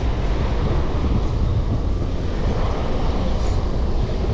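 Steady low rumble of wind and road noise on an action camera carried on a moving bicycle.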